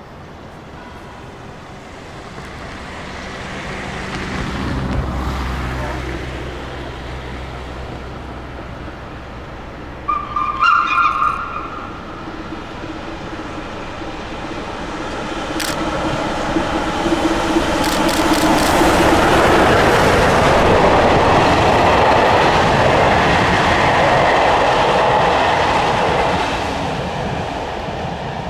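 SNCF 241 P steam locomotive and its train approaching and passing: a short whistle blast about ten seconds in, then the sound of the engine and its train building to its loudest about two-thirds of the way through and fading near the end.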